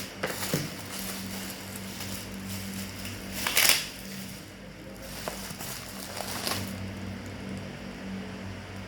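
Packaging being handled during an unboxing: a few short rustling, crinkling bursts, the loudest about three and a half seconds in, over a steady low hum.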